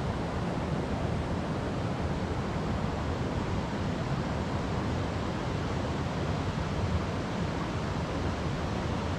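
Steady, even rush of running water, heavy in the low range.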